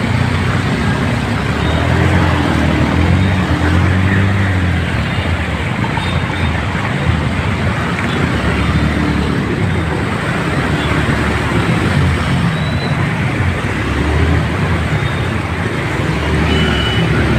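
Vehicle engines running on a flooded road, their low hum swelling and fading, over a steady rush of heavy rain and water.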